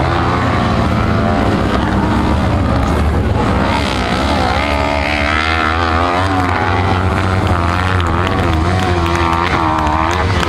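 Small dirt-track racing buggies' engines revving hard as the buggies race past. The pitch wavers up and down through the middle and latter part.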